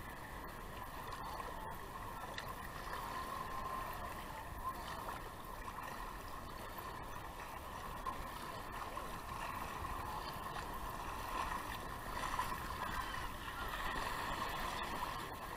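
Shallow sea water sloshing and lapping around a camera held at the surface, a steady wash that grows louder near the end as a small splash breaks over the lens.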